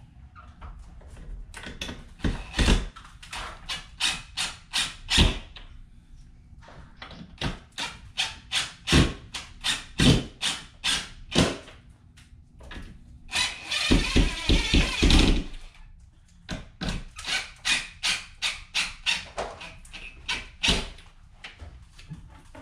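A cordless drill/driver screwing down the toggle clamps of an in-ceiling speaker so they grip the sheetrock. It makes runs of sharp, rapid clicks, with a denser continuous stretch of about two seconds near the middle.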